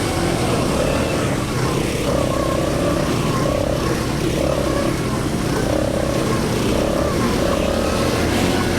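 ATV engine running steadily as the quad is ridden.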